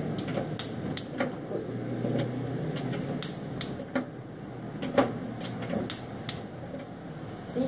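Scattered light clicks and knocks of objects being handled and set down, at irregular intervals, over a steady low hum.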